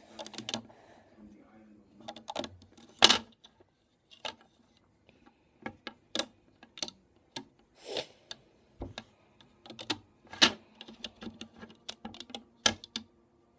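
Loom rubber bands snapping and clicking off the pegs of a plastic Crazy Loom as a finished Waterfall bracelet is ripped off it. The clicks are irregular and sharp, with the loudest snap about three seconds in.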